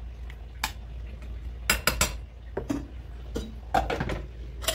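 A steel ladle and stainless-steel cookware clinking: a ladle scraping and knocking against a pot and a small steel bowl as cooked chana dal is scooped out, then a pot lid set back on, with about nine sharp clinks. A steady low hum runs underneath.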